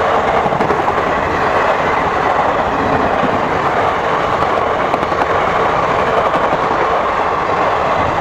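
Indian Railways intercity express passenger coaches passing close by at speed: a loud, steady noise of steel wheels running on the rails.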